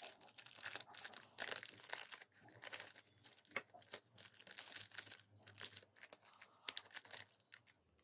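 Foil-lined plastic cookie wrapper crinkling and rustling as fingers handle it and pick out a chocolate-coated cookie, in quick irregular crackles.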